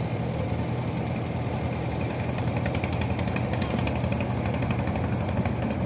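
Fishing boat engine running steadily with a low, even hum.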